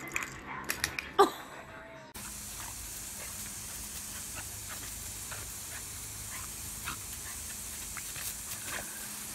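Garden hose jet spraying water in a steady, continuous hiss, with faint ticks over it. Before the hiss starts suddenly about two seconds in, there are separate clicks and rattles and a short loud cry that falls in pitch.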